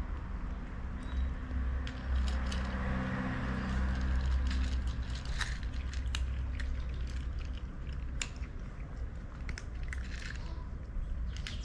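Cats eating dry kibble from bowls: irregular sharp crunches as they chew, over a low steady rumble.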